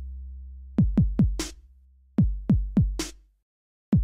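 Electronic background music: a drum-machine beat of kick drums and a snare over a bass line. It drops out for about half a second near the end, then the beat starts again.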